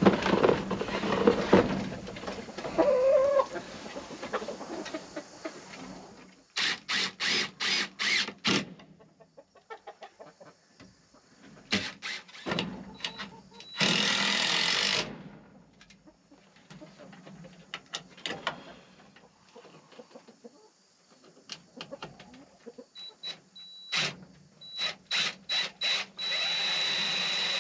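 Chickens clucking at first, then a cordless drill driving screws into wood in short trigger-pulled bursts. There is a longer run of about a second around the middle and another starting near the end.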